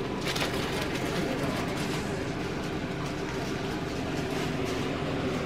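Steady low background rumble and hiss, with a few brief faint scuffs in the first two seconds.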